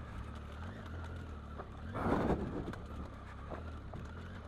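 Triumph Tiger 800's three-cylinder engine running low in second gear, engine braking down a loose rocky descent, with wind noise on the microphone. A brief louder rush of noise comes about two seconds in.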